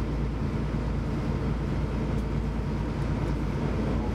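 Passenger ferry's engine droning steadily, heard from inside the cabin, under the wash of water along the hull as the boat runs through choppy water.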